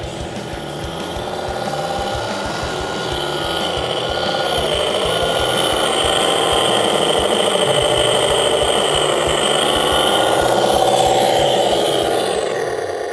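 KongHead 6x6 RC truck driving, its onboard sound system playing a simulated truck engine along with the running of the truck itself. The pitch dips and rises about four to five seconds in, and the sound grows louder as the truck comes close.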